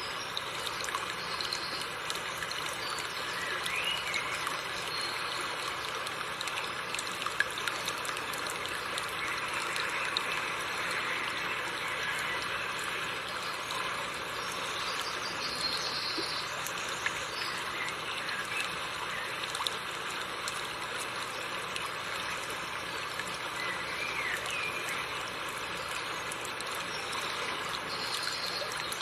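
River water running over rocks: a steady rushing and trickling of a shallow stream.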